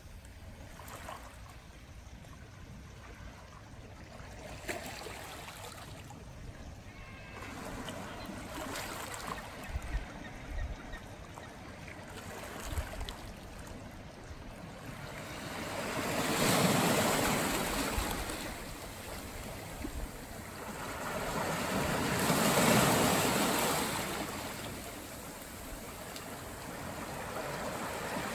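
Ocean surf washing against a rocky shore, a steady rush that swells into two loud waves about halfway through and a few seconds later. Wind buffets the microphone with low rumbles.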